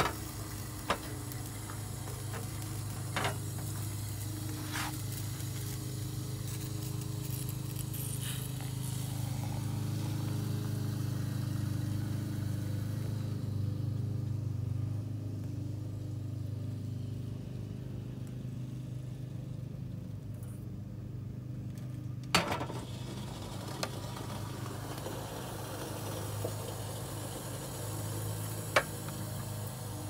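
Hot water poured from a stovetop kettle into a pour-over coffee filter on a mug: a hissing trickle that fades out a little before halfway. Under it a steady low hum, with a few sharp clicks and knocks.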